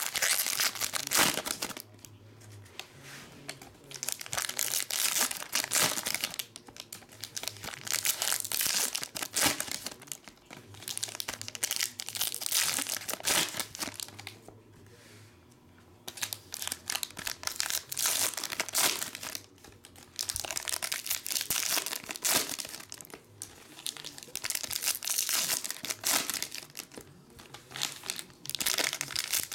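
Foil trading-card pack wrappers being torn open and crinkled, one pack after another, in repeated bursts of a second or two with short pauses between.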